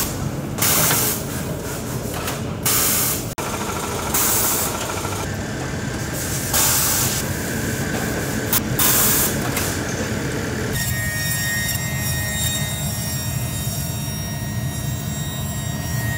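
Shoe-repair workshop machinery: a steady low machine hum with short, loud bursts of hiss about every one to two seconds. After about ten seconds it changes to a spinning roughing wheel on a sole-finishing machine, running with a steady thin whine.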